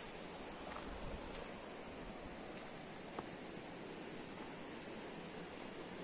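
Faint, steady outdoor background hiss with a couple of light clicks.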